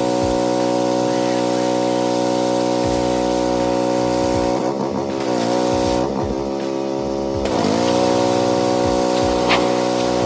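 Pressure washer's engine running steadily, with spray hissing over it. The engine pitch dips briefly and recovers three times in the middle.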